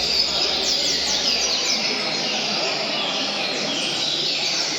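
Several double-collared seedeaters (coleiros) singing at once, their quick downward-sweeping notes overlapping continuously, over a steady murmur of people talking in the background.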